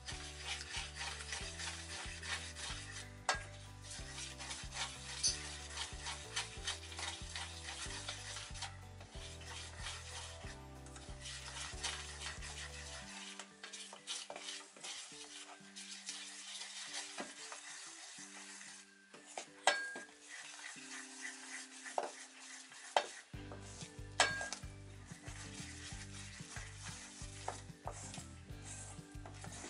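Metal spoon stirring flour and cold water into dumpling dough in a stainless steel bowl: a steady gritty scraping, with a few sharp clicks of the spoon against the bowl.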